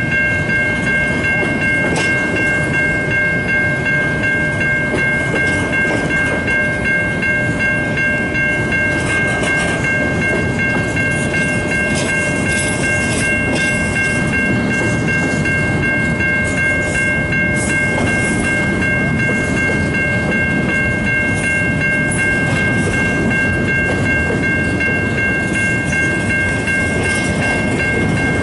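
Freight train rolling past: a steady low rumble with scattered clicks from the wheels, and a steady high-pitched ringing of several notes held throughout.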